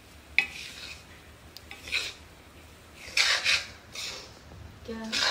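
Steel spoon scraping and stirring a dry, crumbly mixture around a metal kadhai, in a few separate rasping strokes against the pan.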